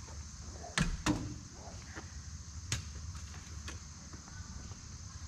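Camp gear being handled and set down at the open back of a pickup truck: two sharp knocks close together about a second in, another near three seconds, then a few light clicks.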